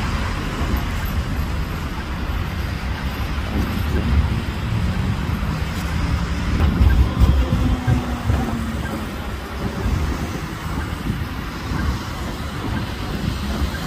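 City street traffic noise: a steady rumble of passing vehicles, swelling louder about seven seconds in as one passes close.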